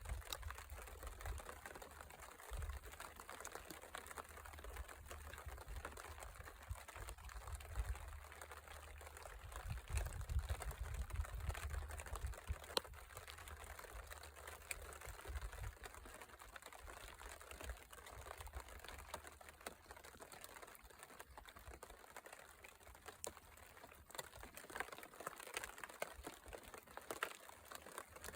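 Light rain of big, scattered drops pattering and ticking faintly, with low wind rumble on the microphone that swells about a third of the way in.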